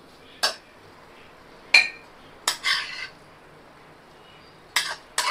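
Metal spatula clinking and scraping against a metal kadai and a glass bowl as tofu bhurji is scooped out and served. There are about six short, separate clinks, a few with a brief ring.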